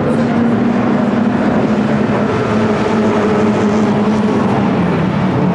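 Touring-car race engines running hard as a pack of cars laps the circuit: a steady, loud engine drone that sags slightly in pitch near the end.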